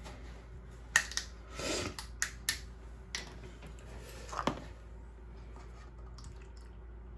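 A few sharp plastic clicks and two short rustles from handling a plastic milk jug: its cap cracking open and being set down on the counter, followed by quiet.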